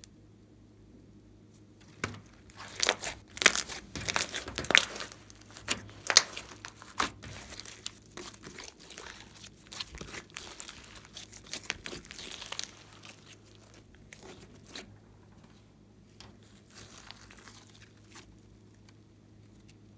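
Hands squeezing, folding and stretching glossy slime mixed with clay and floam, making a dense run of short sticky clicks and crunches. It starts about two seconds in, is busiest for the next five seconds, thins out about halfway through, and leaves only a few faint clicks.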